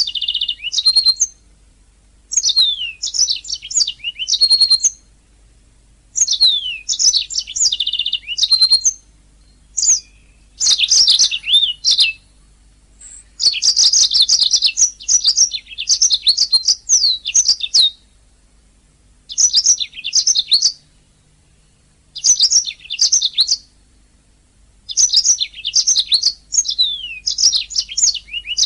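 Domestic canary singing in bursts of rapid trills and quick downward-sweeping whistles, phrase after phrase with short pauses between them.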